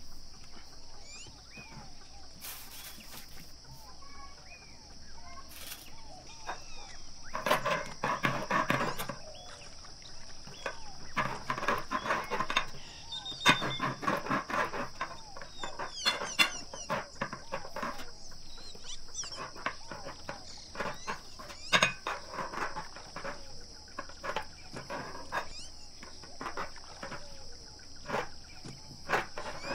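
A long thin rolling pin (oklava) rolling out thin sheets of dough on a floured wooden table, with several runs of rolling and many taps and knocks of the pin and hands on the board.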